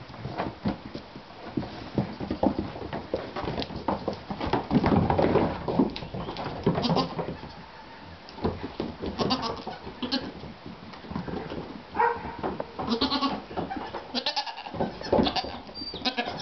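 Goats bleating, several short cries in the second half, over the sharp clicks and knocks of hooves on a wooden barn floor scattered with hay.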